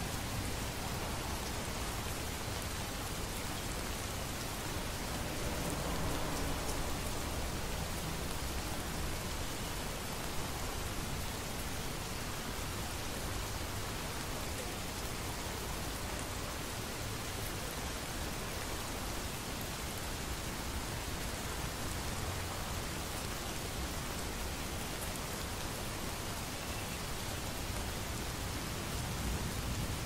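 Steady rain falling, with a low rumble of thunder swelling about six seconds in.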